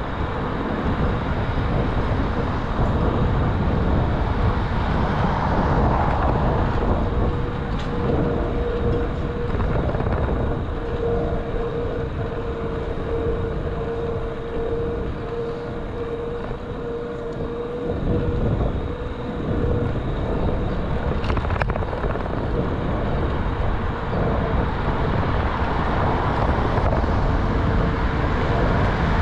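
Wind buffeting and road rumble from a bicycle ride, picked up by a handlebar-mounted action camera's microphone, with short knocks from bumps in the road. A steady faint whine runs through most of it and is loudest in the middle.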